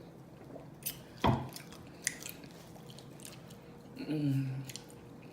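Close-miked eating: a few sharp mouth clicks and one loud bite about a second in, then a short low sound from the eater's throat near the end.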